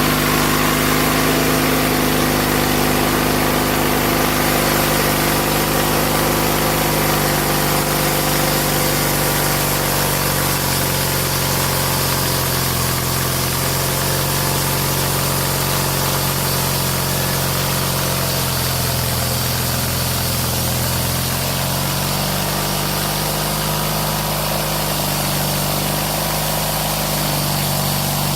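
Small engine from an old Snapper lawn mower running steadily as it powers a homemade sawmill. Its pitch sags slightly about a third of the way in and comes back up near the end.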